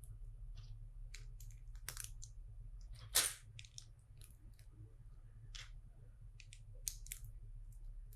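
LEGO bricks being handled and pressed together: scattered light clicks and crackles, the loudest about three seconds in, over a low steady hum.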